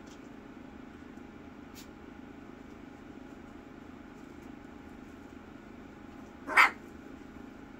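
A three-week-old miniature Bordoodle puppy gives one short, sharp bark about six and a half seconds in, over a steady low background hum.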